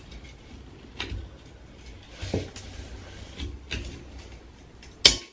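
Scattered knocks and clicks of a screwdriver shaft levering against a metal bathtub spout as the spout is twisted to unscrew it, with a sharper click just before the end. The spout is stuck and won't turn.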